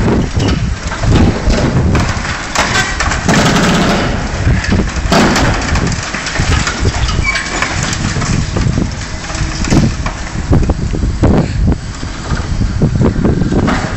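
Liebherr 944 demolition excavator's diesel engine running under load, with irregular knocks, crunches and scraping as its tool works against a steel girder and rubble.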